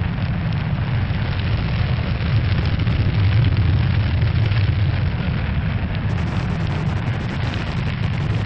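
Steady, loud low rumble with a hiss over it, the sound effect for a spacecraft capsule's heat shield ploughing through the atmosphere during entry. A faint high crackle joins in about six seconds in.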